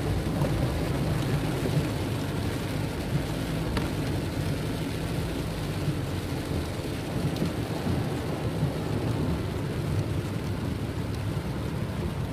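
Steady low rumble and hiss of a car driving in heavy rain, heard from inside the cabin: rain on the windscreen and bodywork and tyres on the wet road.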